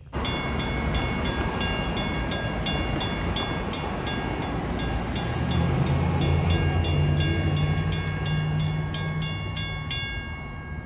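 Railroad grade-crossing warning bell dinging steadily, about three strikes a second, while the crossing gates lower; it stops near the end once the gates are down. A low engine drone swells underneath in the second half.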